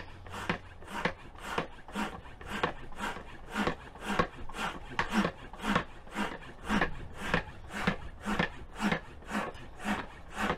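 Manual stand-up hand pump worked in quick, even strokes, about two a second, each stroke a short rush of air pushed down a hose into an inflatable dock platform. The pump is slow to fill the dock.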